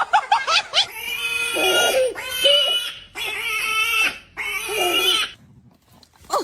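A farm animal calling in four long, harsh cries of about a second each, then falling quiet about a second before the end.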